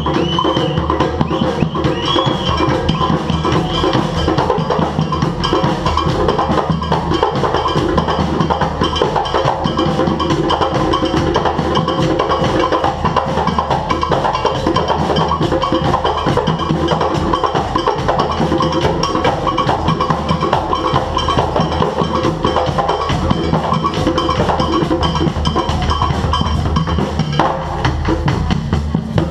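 Live drumming band playing a dense, driving rhythm on several drums, steady and loud throughout.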